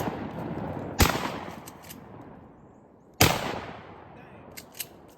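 Two shotgun shots at flying wood ducks, about two seconds apart, each echoing and dying away, with the tail of an earlier shot at the start. A few light clicks follow near the end.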